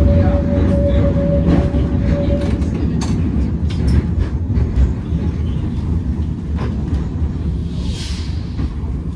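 Tram running along its rails, heard from inside the car: a steady low rumble with scattered clicks and knocks. A steady whine fades out a couple of seconds in, and a short hiss comes near the end.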